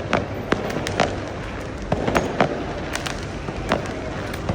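Diwali fireworks and firecrackers going off all around, a rapid, irregular string of sharp bangs and pops of differing loudness, some close and some farther off, over a steady rumble of more distant bursts.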